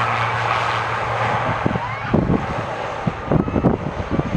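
Aircraft engine noise fading away, its steady hum dying out in the first second and a half, followed by gusts of wind buffeting the microphone.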